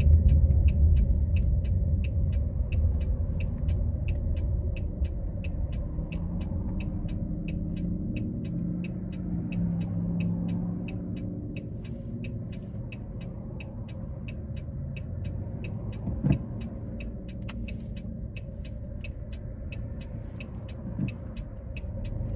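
Car driving, a steady low rumble heard from inside the cabin, with the flasher relay ticking evenly a few times a second. There is a brief thump about two-thirds of the way through.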